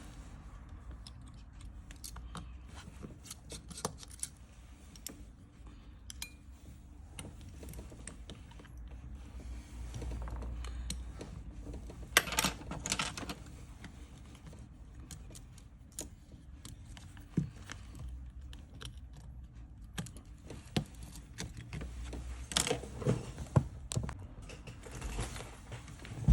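Small precision repair tools clicking and tapping on an iPhone XR's metal parts as the screws for the camera and Face ID flex cables are taken out and the display is lifted away. The sound is a scatter of light clicks and small rattles, with louder clusters about twelve seconds in and again near the end.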